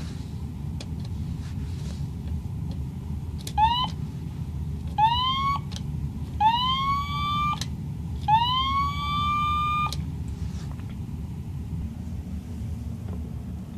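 Toy fire truck's electronic siren from its small built-in speaker: four rising whoops, each one longer than the last, over a steady low hum.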